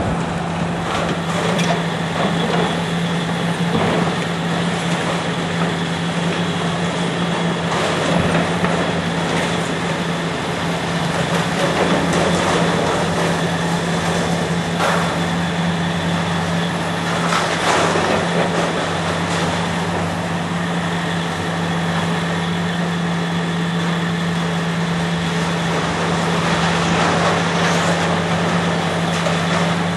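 Heavy demolition machine's diesel engine running steadily, with occasional bangs and scrapes of steel being pulled apart.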